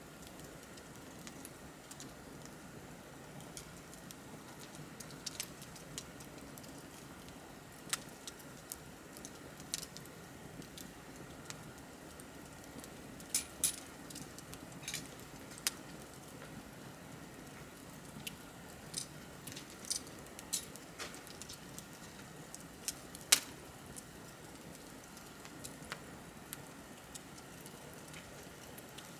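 Wood fire crackling: irregular sharp pops and snaps over a low, steady rush of burning, with one louder pop about two-thirds of the way through.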